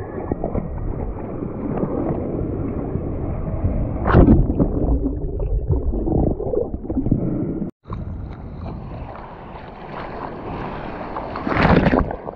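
Sea water rushing and splashing over the nose of a surfboard, right against a board-mounted action camera, with wind buffeting the mic. The board's nose goes under the churning whitewater midway. There are loud surges of splashing about four seconds in and near the end, and the sound cuts out for a moment just before the halfway point.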